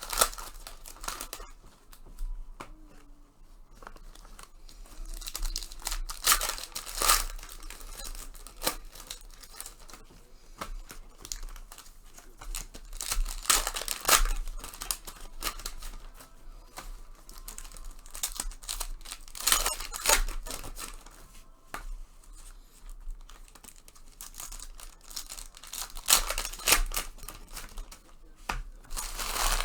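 Foil trading-card pack wrappers being torn open and crumpled, one pack after another, with louder clusters of tearing every six seconds or so.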